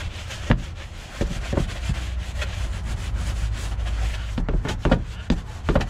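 Long-handled wheel well brush scrubbing inside a Corvette C6's wheel well, the bristles rubbing hard over the liner with repeated sharp knocks as the brush hits it. It sounds like the wheel well is being beaten.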